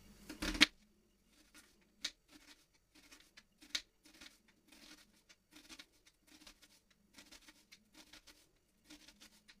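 Kitchen knife slicing a red onion into thin strips on a cutting board: a run of short, crisp cuts, about two or three a second, with a louder knock at the very start.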